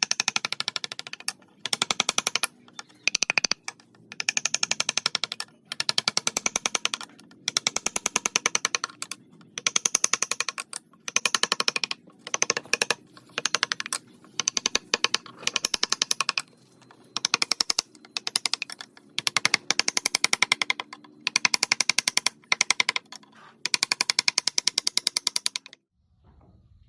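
Chisel work on wood, in rapid bursts of sharp tapping, many strikes a second. Each run lasts about a second with short pauses between, and the tapping stops about 26 seconds in.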